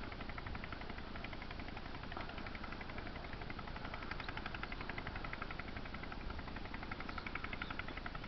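Fishing reel being cranked to retrieve a lure: a rapid, even ticking of many clicks a second that comes in spells, growing stronger and fading.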